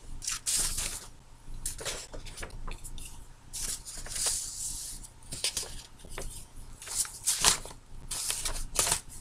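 A sheet of paper rustling and crackling as it is held and moved about, in irregular short brushes and crinkles.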